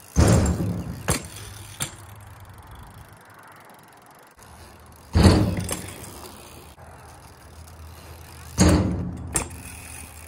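BMX bike hitting the asphalt hard three times, near the start, about five seconds in and about eight and a half seconds in, each thump fading into the rumble of its tyres rolling over the rough pavement, with a few lighter knocks between.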